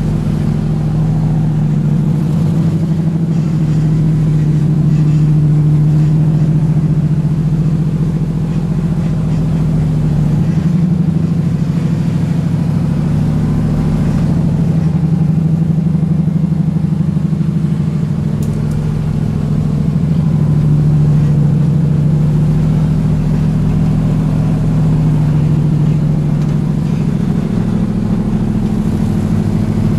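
Supercharged 4.6 SVT V8 engine of an early Ford Bronco running low and steady as it crawls up a rutted off-road trail, swelling slightly with throttle a couple of times.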